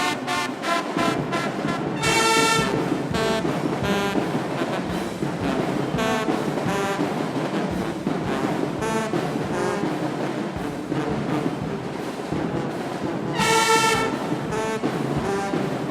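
Marching band brass section playing at full volume, trombones and trumpets together, with loud sustained brass blasts about two seconds in and again near the end.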